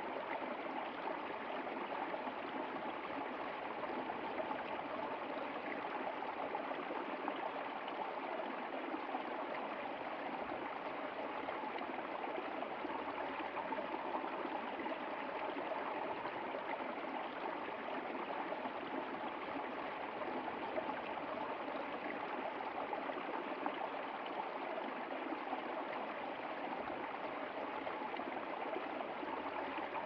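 A small rocky stream spilling over stones into a shallow pool: a steady rush of running water that never changes.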